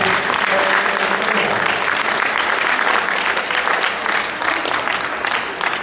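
Audience applauding, a dense steady patter of many hands clapping that eases off slightly near the end.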